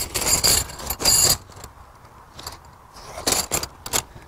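Aluminium tent pegs jangling together in their small nylon drawstring bag as it is handled. There are several short jangles, the loudest in the first second and a half and more after about three seconds, with the bag rustling.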